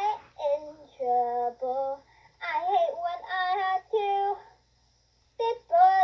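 A young girl singing in short phrases, with a break of about a second shortly before the end.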